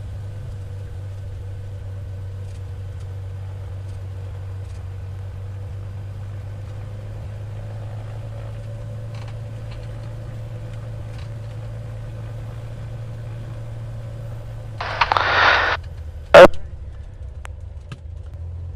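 Cessna 182R's six-cylinder Continental O-470 engine running at low taxi power, a steady drone with a faint steady tone above it. About fifteen seconds in comes a short hiss, then a sharp, loud click.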